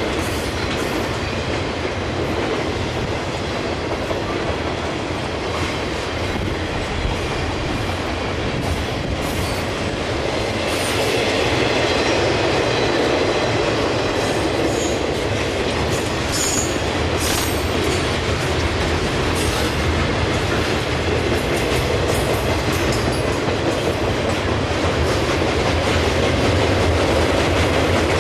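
Railroad cars of a CSX military train rolling past, with a steady rumble and wheels clicking over rail joints. A few brief high-pitched wheel squeals come about halfway through, and the sound grows a little louder partway in.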